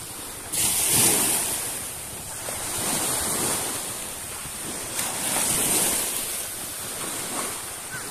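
Shallow sea water washing and lapping in small waves, with wind buffeting the microphone; the wash swells louder about a second in and again around five to six seconds in.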